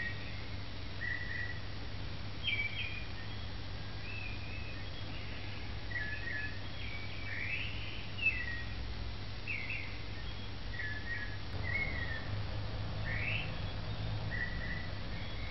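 Birds chirping and whistling in short repeated calls, some sweeping upward in pitch, over a steady low hum.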